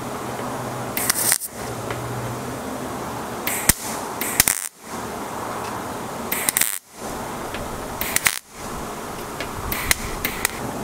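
Millermatic 141 MIG welder laying short tack welds on thin truck sheet metal: about six brief crackling bursts of the arc, each a fraction of a second, one to two seconds apart, with a low steady hum between them. The short tacks keep the heat down so the thin panel doesn't warp.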